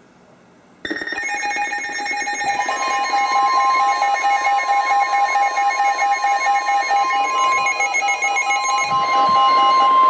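NOAA Weather Radio emergency alert tones signalling a new warning. A harsh, rapid stuttering tone cuts in suddenly about a second in, with a pulsing tone beneath it. About three seconds in, the weather radio's steady warning alarm tone joins and carries on loud.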